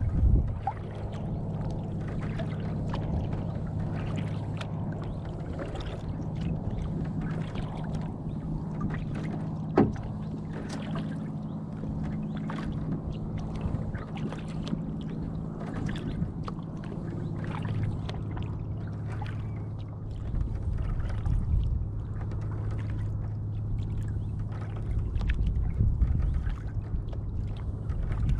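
Water splashing and dripping around a canoe being paddled, over a low steady hum. One sharp knock about ten seconds in.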